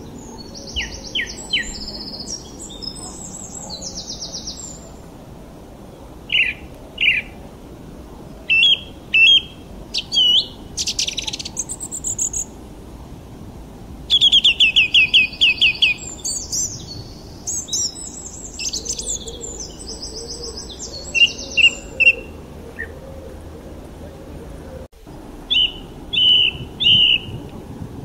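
Songbirds chirping and singing in separate short phrases of high whistled notes and fast trills, with pauses between them, over a steady low background noise.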